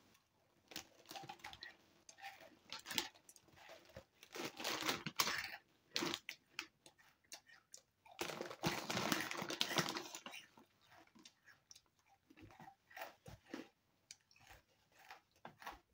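Crunching and chewing of crisp Japanese rice crackers close to the microphone, in irregular spells of crackling crunches with short pauses between.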